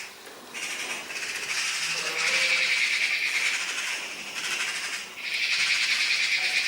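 A steady, high-pitched hissing buzz that swells in about half a second in, dips briefly a little past the middle, then returns louder.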